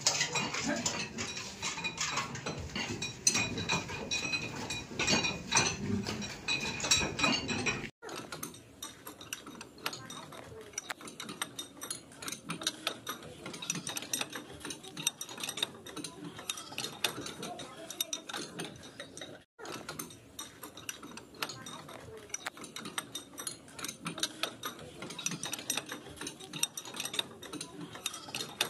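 Several hand-turned screw jacks being cranked with steel bars to raise a concrete roof slab, a dense, irregular clatter of metallic clicks and clinks from many jacks at once.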